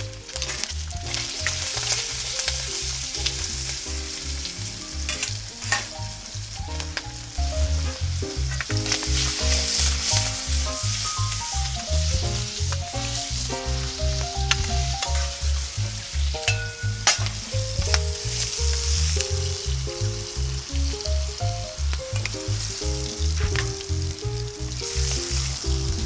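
Oil and food sizzling in a wok over a wood fire, with a few sharp clicks. Under it runs background music with a steady beat and a melody.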